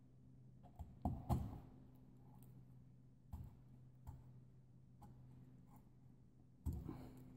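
Metal hydraulic cylinder parts (the gland head and spacers) being handled and set down on a workbench: scattered light knocks and clinks, two close together about a second in and a cluster near the end, over a steady low hum.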